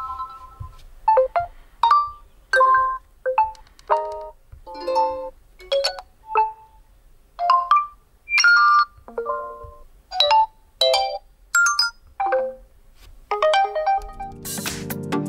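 Realme C25s alert tones previewed one after another: a string of short electronic chimes and jingles, each well under a second and each different, a new one every half second to a second. About a second before the end, steady electronic music starts.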